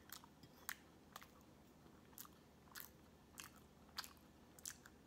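Faint close-up chewing of a mouthful of soft layered vegan wedding cake, with soft wet mouth clicks roughly every half second to second.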